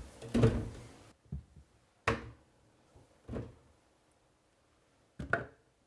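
About four separate knocks, irregularly spaced, as pieces of fruit and root are set into the Kuvings Auto 10 Plus juicer's hopper.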